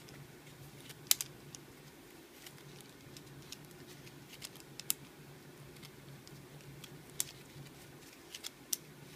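Vegetable peeler scraping the skin off a matsutake mushroom: faint, irregular small clicks and scratches as the blade catches the skin, the sharpest about a second in.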